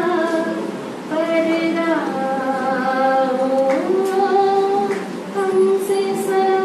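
A woman singing solo into a handheld microphone, holding long sustained notes, with a slide up in pitch about four seconds in.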